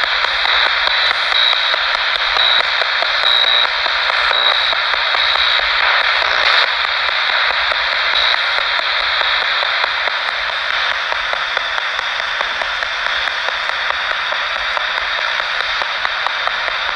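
Steady static hiss like a radio tuned between stations, with a faint high tone blinking on and off through the first six seconds.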